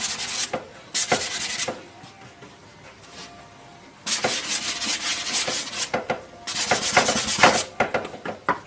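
Paintbrush scrubbing oil paint onto a stretched canvas in bursts of short strokes, with a pause of about two seconds a couple of seconds in.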